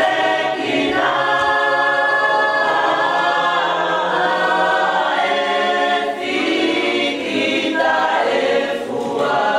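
A choir of women's voices singing a Tongan hymn a cappella, in long held notes, with short breaks between phrases about a second in and again around six seconds.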